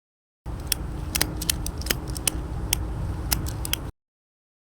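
Nylon ratchet-strap webbing being fed through the eyelet slot of a steel ratchet barrel: a steady rustling of handling, with scattered sharp clicks from the metal ratchet mechanism.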